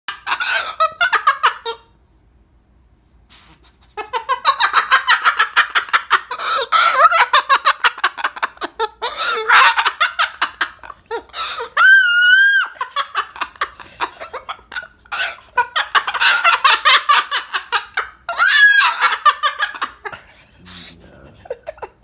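Moluccan cockatoo giggling in long runs of rapid, laugh-like chatter, broken by a short pause about two seconds in. Midway it gives one held, wavering call.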